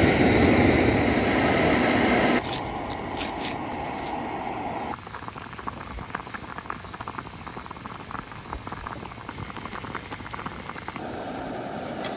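A gas canister stove's burner hissing loudly just after being lit, which stops abruptly about two seconds in. Then a pot of sundae-gukbap (Korean blood-sausage soup) at a rolling boil gives a quieter, steady bubbling full of fine, rapid pops.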